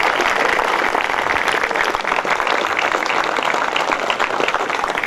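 A large crowd applauding: dense, steady clapping from many hands.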